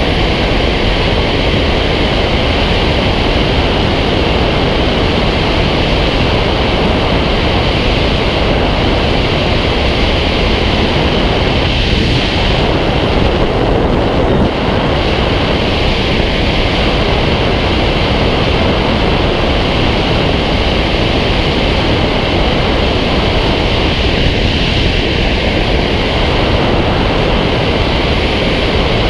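Loud, steady rush of wind buffeting an action camera mounted on the wing of a Fox glider in flight.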